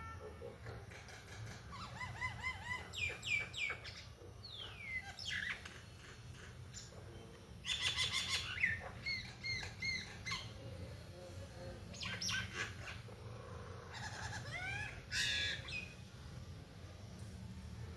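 Common myna (Indian myna) calling in bursts of squawks, chirps and gliding whistled notes, several times over, with a steady low hum underneath.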